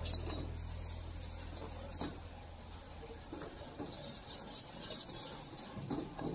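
Metal ladle scraping and tossing fried rice around a wok over a high flame, with sharp clanks of the ladle against the wok about two seconds in and twice near the end.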